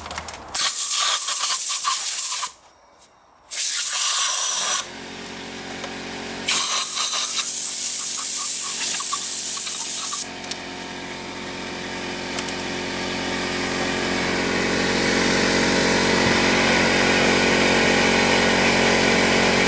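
Compressed-air blow gun blowing out holes in three long hissing blasts. About ten seconds in, the air compressor's motor starts and runs with a steady hum that grows gradually louder as it recharges the tank.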